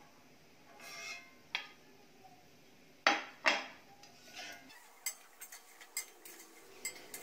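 Steel slotted frying spoon knocking against a stainless steel kadai and a plate while fried koftas are lifted out of hot oil: two sharp knocks about three seconds in, then a run of light taps.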